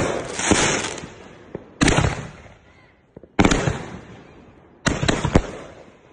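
Consumer aerial fireworks bursting overhead: four loud bangs about a second and a half apart, each fading away over a second or so, with a few smaller sharp pops between them.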